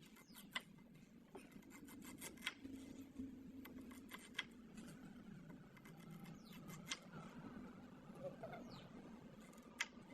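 Faint kitchen handling sounds: scattered light clicks and taps, about six in ten seconds, over a low steady hum.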